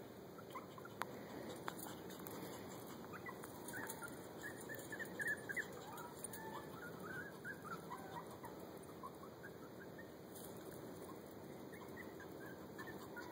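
Young puppies squeaking and whimpering in short, high-pitched cries, faint and coming thickest around the middle.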